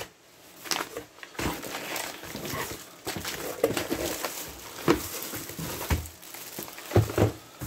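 Plastic bags and packaging rustling and crinkling as parts are lifted out of a cardboard box, with scattered light clicks and a couple of dull knocks near the end.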